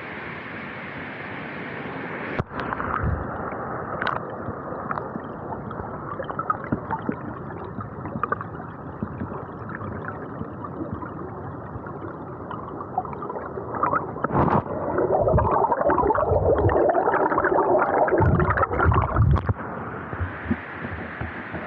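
Stream water heard with the camera dunked underwater: a muffled gurgling and churning, with a few knocks as the camera goes in and moves about. The churning grows loudest in the second half, and near the end the camera comes back out into the open-air rush of water.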